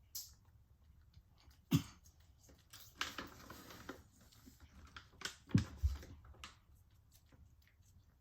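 A cat crunching a treat: irregular crisp clicks and crackles, with two dull thumps, about two seconds in and again past five seconds.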